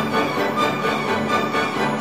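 Background music with orchestral instruments.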